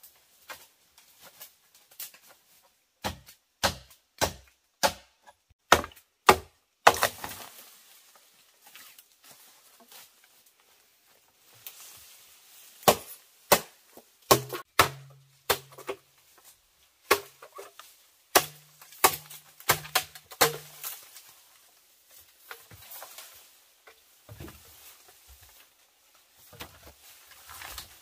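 A blade chopping bamboo: a quick run of about eight sharp blows, roughly two a second, then more scattered strikes after a pause.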